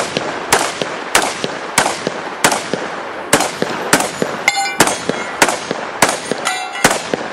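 Rapid semi-automatic fire from a converted Saiga 12 12-gauge shotgun, a steady string of about a dozen shots, one roughly every half second. Two short metallic rings come about halfway and near the end.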